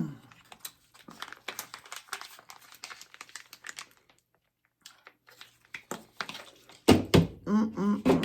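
Close-miked eating: crisp tostadas crunching and being chewed, a rapid irregular run of small crackles and clicks, broken by a moment of silence midway. A voice sounds briefly near the end.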